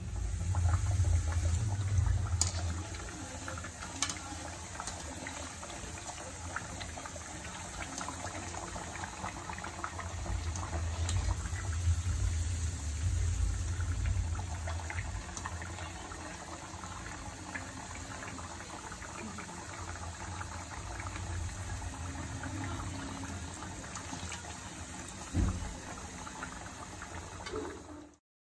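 Hot oil sizzling and bubbling around rice-flour adai patties deep-frying in a pan, a steady crackle with a low rumble underneath. A single thump comes near the end.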